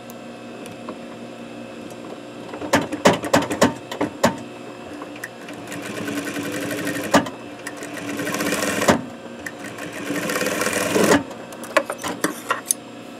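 Industrial Juki sewing machine stitching a stay stitch along fabric in three runs of a couple of seconds each. Clusters of sharp clicks and knocks come before and after the runs.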